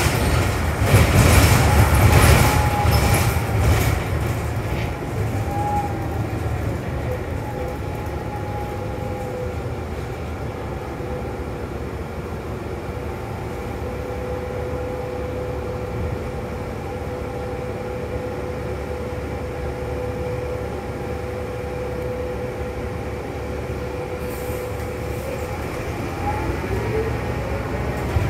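Interior noise of a New Flyer XD40 diesel city bus. For the first few seconds it is louder, with rattles and knocks. It then settles into a steady hum with a held whine, and near the end a rising whine comes in as the bus picks up speed.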